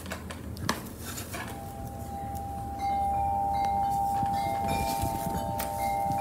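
Soft chime-like background music: held bell tones, one coming in about a second and a half in and a higher one joining about three seconds in, both ringing on steadily. A few faint taps and rustles sit beneath.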